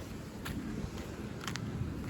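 Low, steady rumble of passing road traffic, with a couple of faint clicks; no horn sounds.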